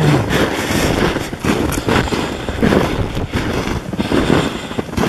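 Footsteps crunching through snow at a walking pace, about two steps a second.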